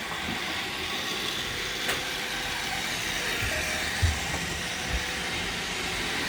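Roomba robot vacuums running: a steady whirring hiss of their suction fans and brushes, with a sharp click about two seconds in and a couple of low thumps around four and five seconds.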